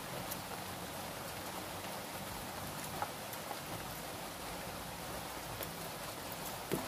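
Steady rain falling on the house, an even hiss, with a light knock about three seconds in and another near the end.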